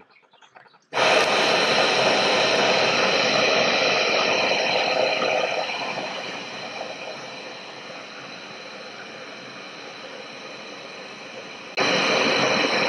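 Bluu Mega canister camp stove's gas burner, fed from a 1 lb propane cylinder, relit after going out: the flame catches suddenly about a second in and runs as a loud, steady hissing rush under the pot. It eases to a lower level through the middle, then jumps louder again near the end.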